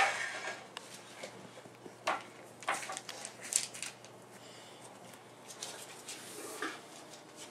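Young bullmastiff puppies squealing and whining. A sharp squeal comes right at the start, a few short sharp sounds follow between two and four seconds in, and a short whine comes near the end.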